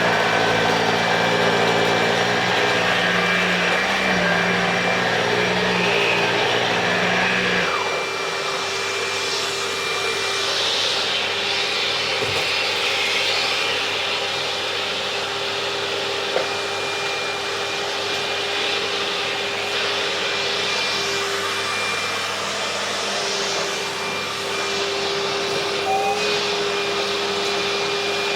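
Kärcher CV36/2 upright vacuum cleaner running steadily while picking up scattered debris. About eight seconds in, a low hum drops out, leaving a steady whine and rushing air.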